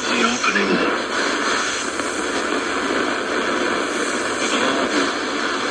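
Shortwave static hissing steadily from the speaker of a Sony ICF-F12S portable radio, tuned between stations during a band scan.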